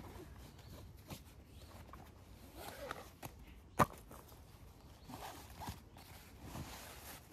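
Rucksack fabric and kit rustling as gear is pulled out of a pack, with one sharp knock just under four seconds in.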